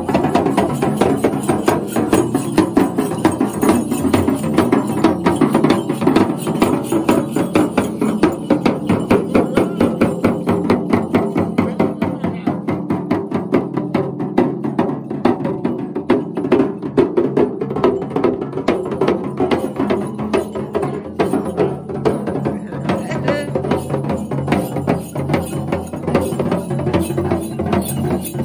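Two dhyangro, the double-headed frame drums of Tamang Bonpo shamans, beaten with curved sticks in a steady, fast rhythm, with a jingle of small bells.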